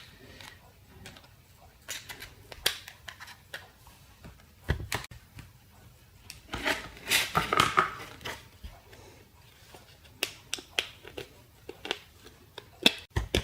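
Back cover of a fake iPhone 6S being pried off the phone by hand: scattered small clicks and scrapes, with a louder run of scraping and clicking around the middle.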